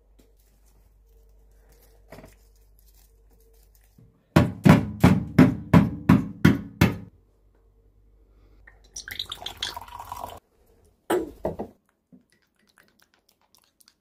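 A run of about eight quick, sharp knocks, roughly three a second, followed a few seconds later by a shorter scratchy clatter and one brief knock.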